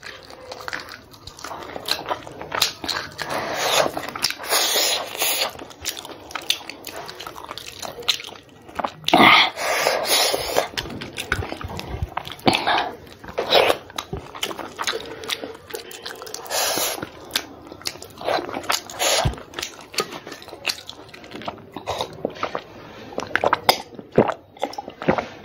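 A person eating close to the microphone: small freshwater snails in curry bitten and sucked from their shells and chewed with rice, with many short wet smacks and clicks.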